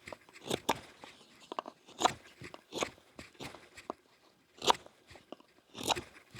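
Dry wood crunching and cracking in irregular sharp strokes, about eight of them, the loudest about five seconds in.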